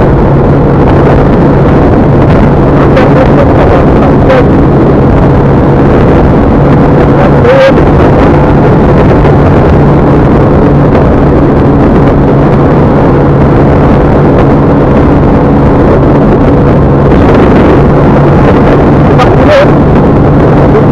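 Steady vehicle running noise with a constant low engine hum under a dense rush of road and wind noise, very loud throughout and unchanging.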